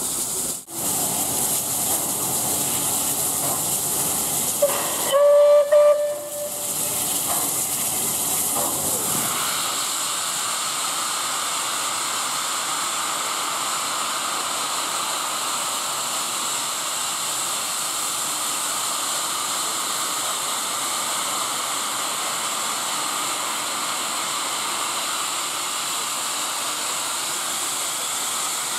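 SR Battle of Britain class 4-6-2 steam locomotive hissing steadily while standing at the platform, with one short whistle blast about five seconds in. The steam hiss grows stronger and steadier about halfway through.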